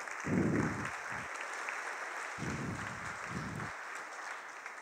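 Audience applauding: steady clapping throughout, with two low rumbles underneath, about half a second and two and a half seconds in.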